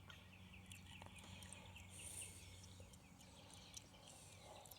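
Near silence, with faint high chirping repeated several times a second in the background and a faint low hum.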